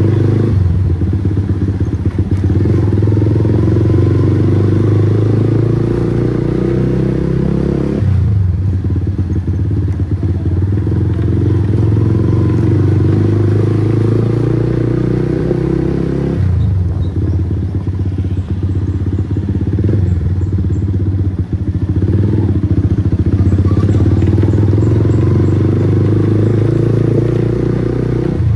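Bajaj Pulsar NS160's single-cylinder engine running through an aftermarket Akrapovic GP full-system exhaust, ridden at low speed: a loud, steady exhaust note. It shifts abruptly about a third and about halfway through, and changes again later.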